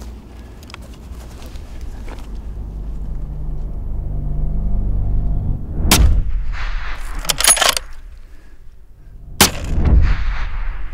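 Two shots from an Accuracy International AXMC bolt-action rifle in .338 Lapua Magnum, about three and a half seconds apart, each followed by a rolling echo. Between them come quick sharp metallic clicks as the bolt is worked for the second round.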